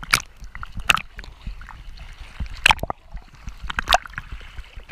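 Sea water sloshing and lapping against a GoPro camera at the waterline, with a few sharp, irregular slaps of small waves hitting it.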